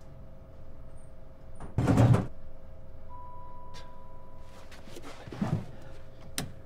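Lift car jolting to a halt with one heavy clunk about two seconds in, then a steady electronic beep for about a second and a half. Near the end come sharp clicks of the lift's floor buttons being pressed; the lift has stalled between floors.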